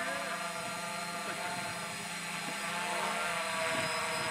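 Tarot FY680 hexacopter hovering overhead, its six electric motors and propellers giving a steady buzz made of several held tones over a hiss.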